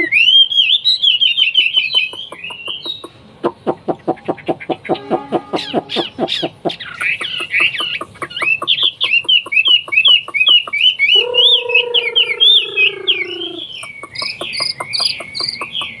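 Chinese hwamei singing a loud, varied song of rapid, bending whistled phrases, broken a few seconds in by a run of quick clicking notes. About eleven seconds in, a lower, drawn-out falling call sounds under the song.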